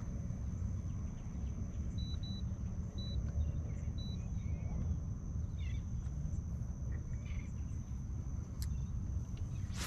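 Outdoor ambience: a low, steady rumble with a thin, steady high-pitched insect whine above it, and a few short high chirps about two to four seconds in.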